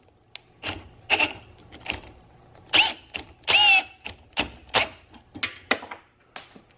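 Cordless drill run in short trigger bursts, spinning a fastener into a 3D-printed plastic skateboard-truck hanger; the motor whirs up and drops off in pitch in each burst, as the drill's battery is running down.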